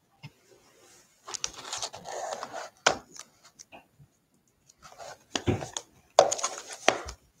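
Shrink-wrapped cardboard trading-card box being handled: it is laid down, slid and picked up, making irregular scrapes, rubs and sharp knocks. The longest scuffing comes early, and the loudest knocks come about three, six and seven seconds in.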